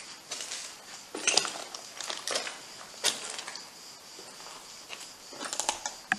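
Footsteps crunching and scraping on loose stone rubble and debris, irregular steps with a few louder crunches, over a steady high chirring of night insects.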